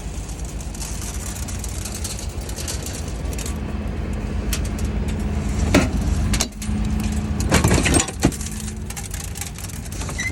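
Diesel engine of a farm vehicle running steadily with a held hum, with a few clunks and rattles about six to eight seconds in.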